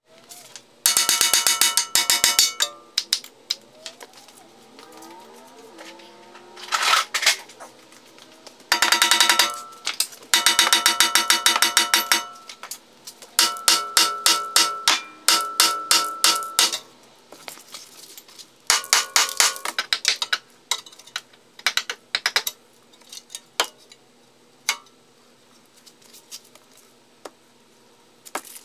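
Hammer blows on the BMW E46's front control arm, striking to break its seized ball joints loose. The blows come fast, in several bursts a second or few long, each strike ringing like metal.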